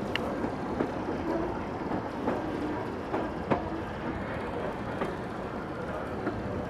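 1928 Canadian Car & Foundry streetcar rolling along jointed track, heard from aboard the car: a steady rumble with sharp wheel clicks over the rail joints every second or so, the loudest about three and a half seconds in.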